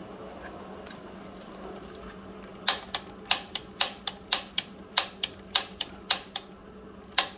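Piezo igniter button on a gas water heater's control valve being pressed again and again to spark the pilot: sharp clicks, often in pairs, about two or three a second, starting under three seconds in, over a low steady hum.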